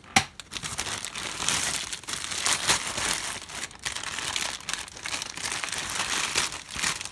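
Clear plastic bag of model-kit parts crinkling as it is lifted out of the box and handled, with a sharp click just after the start.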